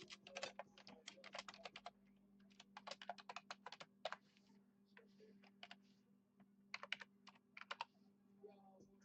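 Typing on a computer keyboard: several quick bursts of keystrokes with short pauses between them, over a faint steady hum.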